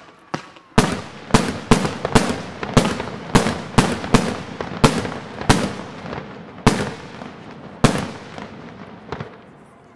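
Aerial fireworks shells bursting in a rapid series of sharp bangs, about two a second, each trailing off in an echo. The bangs space out after about six seconds and fade away near the end.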